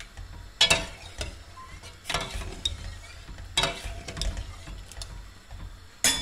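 A spoon stirring in a stainless steel pot: a series of short scrapes and knocks against the pot, about one every second.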